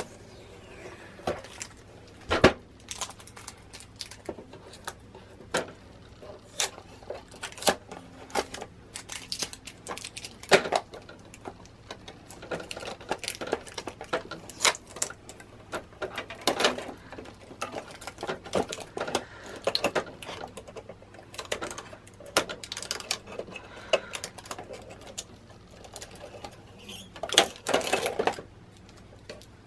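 Blue packing tape being peeled and pulled out of a Silhouette Cameo 4 cutting machine by hand: irregular crinkles, taps and sharp clicks of tape and fingers against the machine's plastic housing and roller bar, with a few louder clicks. A faint steady hum runs underneath.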